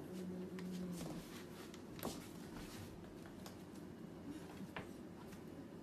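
Faint scratching and tapping of a kitten playing with a feather wand toy on a wooden floor, with a few sharp clicks, one about two seconds in.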